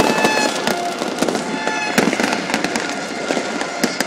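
Fireworks going off in a dense run of sharp bangs and crackling pops over a constant noisy din.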